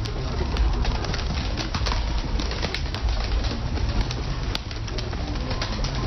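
A flock of domestic pigeons cooing, with frequent quick wing flaps as birds take off and land, over a steady low rumble.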